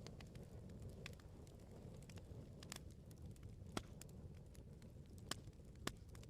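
Wood bonfire crackling: scattered sharp pops and snaps over a faint, steady low rush of flames, with the loudest pops a little under four seconds in and twice more near the end.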